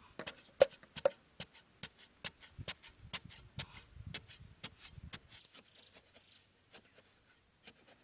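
A large knife blade chopping into hard, dry soil to dig it loose: rapid strikes, several a second. The two loudest ring briefly with a metallic note near the start, and the strikes thin out after about five seconds.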